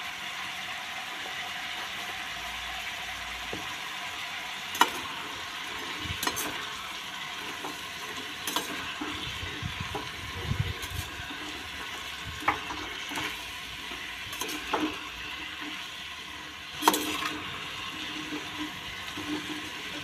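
Mixed vegetables with spices sizzling in a kadai while a spatula stirs them, scraping and knocking against the pan every couple of seconds, loudest near the end.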